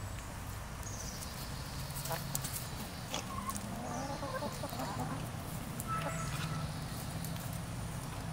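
Backyard hens clucking softly with short wavering calls, over a low steady hum, with a few sharp clicks scattered through.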